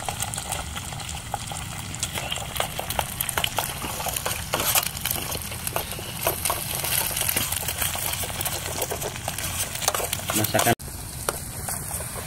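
Egg frying in a camping pan on a portable gas stove, sizzling steadily, with a metal spoon scraping and tapping against the pan as it is stirred. There is a brief break in the sound about eleven seconds in.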